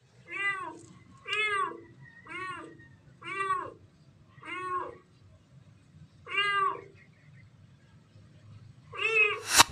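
A kitten meowing seven times, high calls that rise and fall in pitch, about one a second with a longer pause before the last two. These are the distress cries of a kitten trapped inside a downspout.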